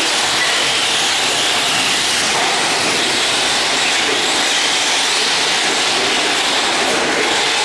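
Radio-controlled race trucks running on the track: a steady, unbroken whirring noise.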